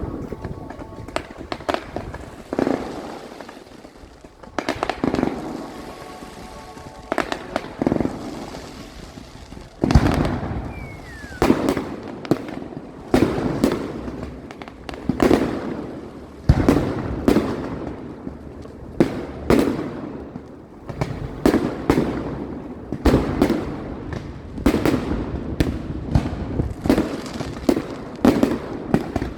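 Fireworks display: aerial shells bursting with sharp bangs and crackling. The bangs are spaced out at first and come in quick succession from about ten seconds in.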